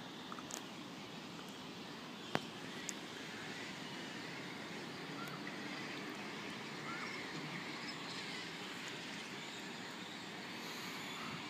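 Faint, steady rumble of distant vehicle noise that slowly grows a little louder, with one sharp click about two seconds in.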